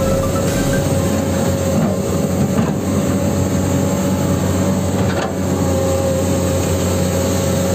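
Electric motors and gearing of a Huina 1594 RC excavator whirring steadily as the boom and bucket move, with a few sharp clicks along the way.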